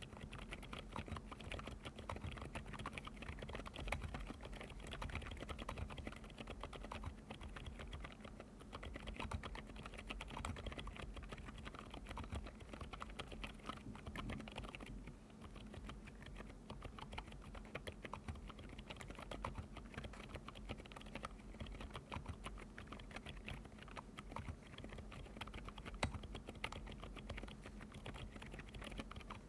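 Continuous typing on an Epomaker RT100 mechanical keyboard fitted with Outemu Cream Yellow Pro silent tactile switches. The keystrokes are soft and damped, with a quiet crunch like treading on fresh snow, and a slight lull about halfway through.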